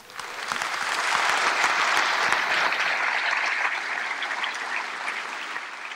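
Audience applauding, swelling over the first second and tapering slightly toward the end.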